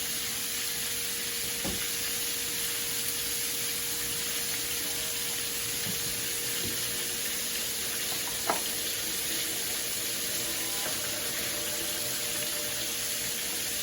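Butter melting and sizzling in a pan on the stove, a steady hiss, with a sharp knock about eight and a half seconds in.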